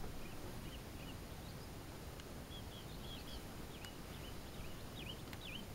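Small birds giving many short, high chirps, quick down-and-up notes one after another through most of the stretch, over a steady low outdoor background noise.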